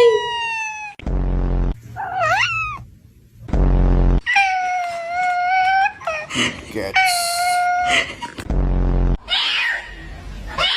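A cat meowing several times: short gliding meows and two long, drawn-out ones. They alternate with three short, low buzzing sounds.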